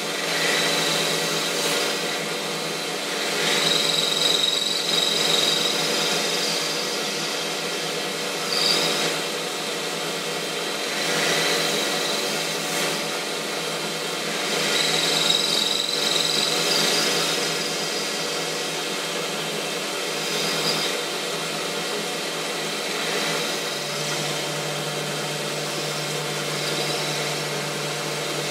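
Metal lathe running, its insert tool cutting a ball end on a spinning bar over a steady motor and drive hum. The cutting hiss swells and fades several times as the tool is swung round the ball.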